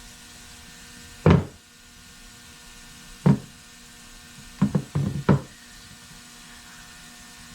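Hard knocks of a hammer on the steering rack pinion as its bearing is driven off: one at about a second in, another two seconds later, then a quick run of about five.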